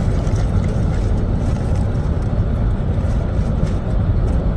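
Steady low rumble of noise, with faint crackles high up.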